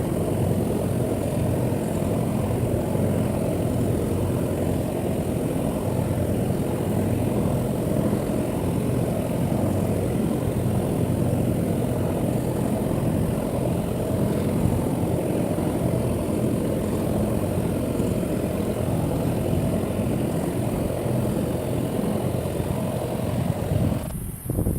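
A steady engine drone, unchanging in pitch, that cuts off suddenly near the end.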